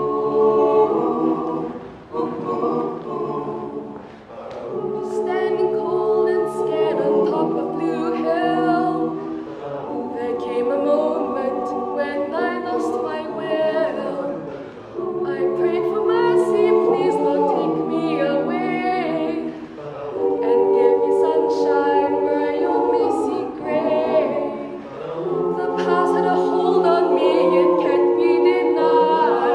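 Mixed-voice a cappella group singing the song's introduction in close harmony, with sustained chords that swell and change in phrases of a few seconds, before the lead lyrics come in.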